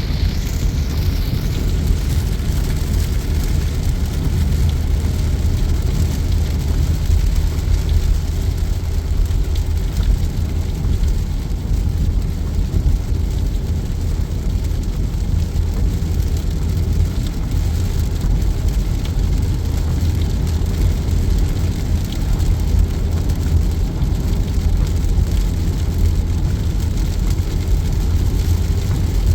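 Car driving on a wet motorway in heavy rain: a steady low rumble of road and tyre noise mixed with rain on the car. A higher hiss fades away about a second in.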